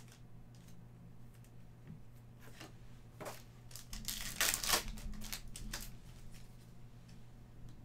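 A foil trading-card pack being torn open and crinkled, loudest as a burst of crackling about four seconds in, between lighter clicks and rustles of cards being handled.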